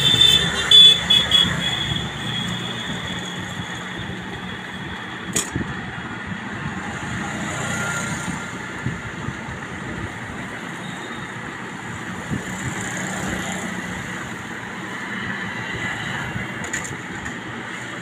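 Steady background rumble and hiss like distant traffic, with louder rustling in the first second or two and light handling noises. One sharp click comes about five seconds in.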